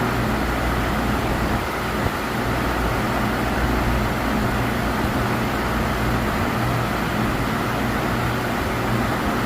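CNC milling machine running, a steady hum and whir with no pauses.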